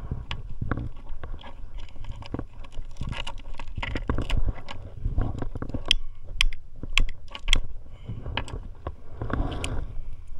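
Hands handling a mussel and fishing tackle aboard a kayak while baiting a hook: scattered sharp clicks and scrapes of shell and gear over a steady low rumble.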